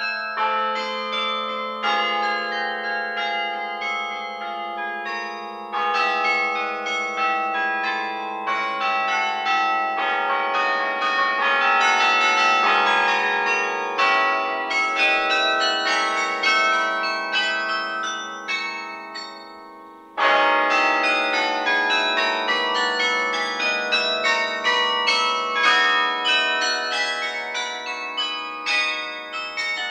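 Carillon bells played from the baton keyboard: a dense passage of struck bells ringing over one another. About two-thirds of the way through the sound dies away briefly, then a loud new chord enters with a deep bass bell underneath.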